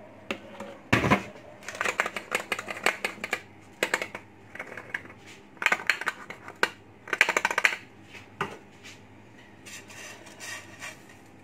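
Kitchen clatter of dishes and utensils against glass dessert jars: groups of quick clinks and rattles with a heavier knock about a second in, and fainter clinks near the end.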